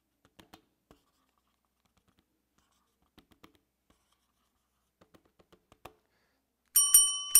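A few faint clicks, then near the end a small bell rings with quick repeated strikes, marking the end of the time for writing answers.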